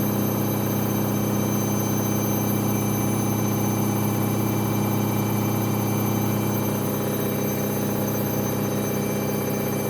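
Washing machine on its spin cycle, the drum spinning at a steady speed: a constant low hum with thin steady high tones above it.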